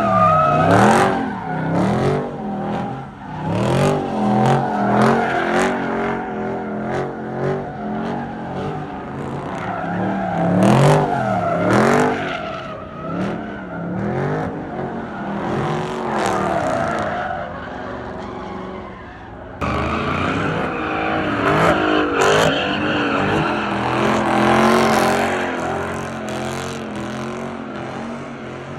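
A car engine revving up and down over and over while its tires squeal and skid, as the car slides in circles doing donuts. The sound changes abruptly about two-thirds of the way through.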